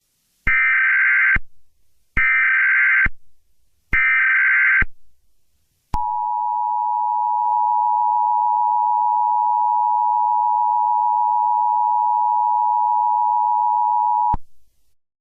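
Emergency Alert System alert tones: three short warbling SAME data bursts of about a second each, then the two-tone EAS attention signal held steady for about eight seconds before cutting off sharply.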